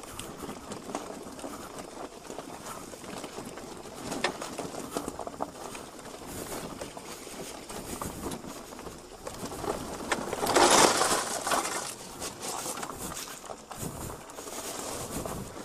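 Daymak e-bike riding over rough gravel ballast and through long grass: a steady rattle with many small knocks, and a louder rush of noise about ten and a half seconds in.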